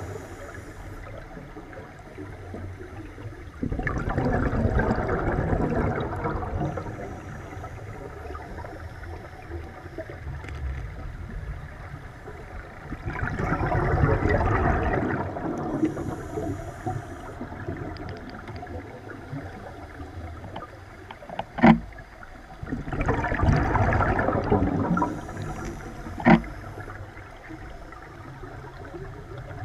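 Scuba diver breathing through a regulator underwater: three long bursts of exhaled bubbles about ten seconds apart, with a fainter high hiss from the regulator between them. Two sharp clicks sound in the second half.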